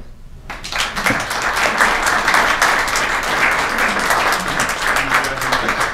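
Audience applauding, many people clapping at once. It starts about half a second in and holds steady.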